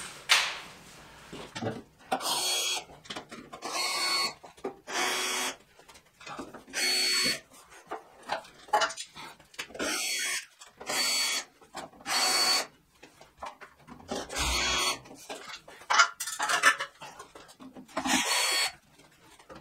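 Cordless drill-driver backing out the cover screws of solar inverters, running in about a dozen short whining spurts of up to a second each, with clicks of handling between them.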